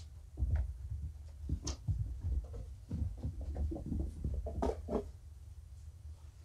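Kittens scampering and scuffling across the floor and the cat bed: a quick, irregular run of soft paw thumps and scratchy scrabbling for a few seconds, then it dies down.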